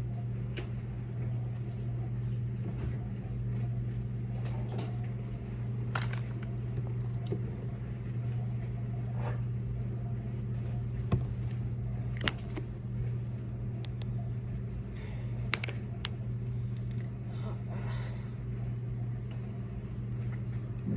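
A steady low mechanical hum with a few scattered light clicks and knocks.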